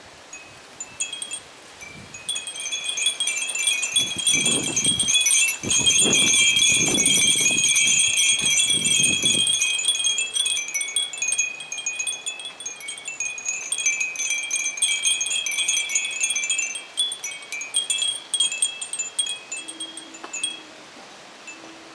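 Many Japanese furin wind chimes jingling together in the wind, a dense cluster of high tinkling notes that swells about two seconds in and thins out near the end. A low wind rumble on the microphone runs under the loudest part, roughly the first half.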